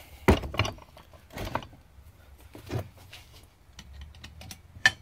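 Hammer blows on an ice pick used as a punch to drive the shaft out of an antique Singer Model 12 sewing machine's hand wheel: several sharp knocks at uneven intervals, two of them in quick succession near the start.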